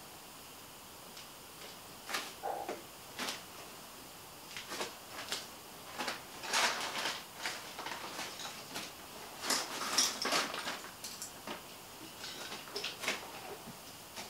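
Scattered clicks, knocks and rustles of a person moving about and handling objects, with two spells of heavier rustling partway through.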